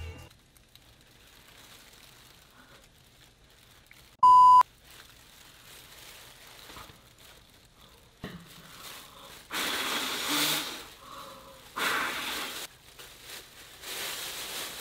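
A single short, high beep about four seconds in. From about halfway, three breathy rushes of air of about a second each: a person blowing into a bag to inflate it.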